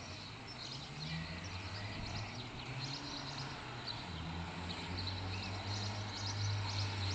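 Outdoor birdsong ambience at a stork nest: small birds chirping in short repeated bursts, over a low steady rumble that grows louder from about four and a half seconds in.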